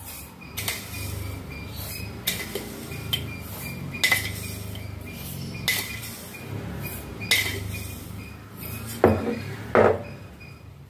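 A metal spoon scooping sugar from a glass jar into a stainless-steel bowl, clinking against the jar and bowl about eight times at irregular intervals of one to two seconds.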